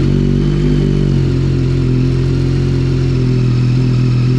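2022 Yamaha MT-09 SP's 890 cc inline three-cylinder engine idling steadily just after start-up, run on fresh oil to circulate it before the oil level is checked.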